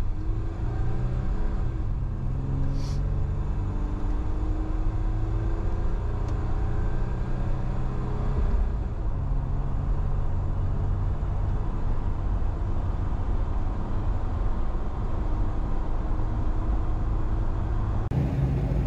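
In-cab sound of a 1995 Nissan Pathfinder WD21 driving on the highway: its 3.0-litre V6 engine running under steady road and wind noise. The sound changes abruptly near the end.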